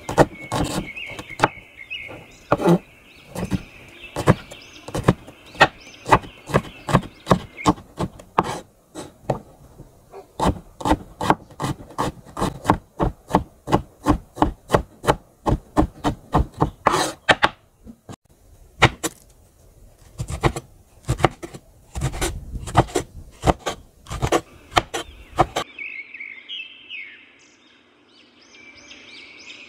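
Knife chopping cabbage on a wooden board in quick, even strokes, about three a second, with a brief pause partway through. The chopping stops near the end, leaving a high chirping in the background.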